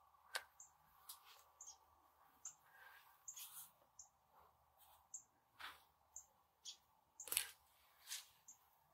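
Faint, high bird chirps about once a second, with a few sharp clicks, the loudest near the end, over near silence.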